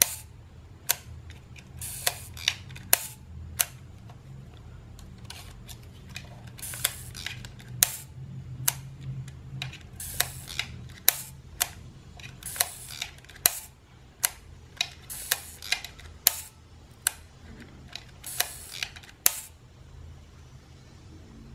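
Canon Demi EE17 half-frame camera's exposed shutter mechanism being worked by hand: a string of sharp, irregular small metal clicks, some drawn out into short scraping rasps.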